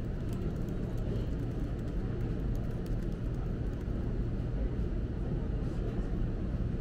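Steady low background rumble, with faint scattered clicks of laptop keys being typed on.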